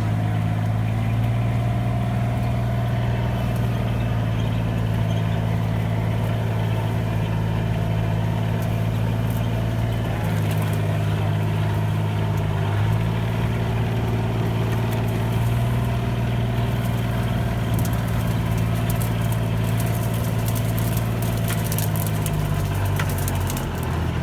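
A vehicle engine running steadily at an even pitch while driving across farm ground, with scattered light clicks and rattles in the last several seconds.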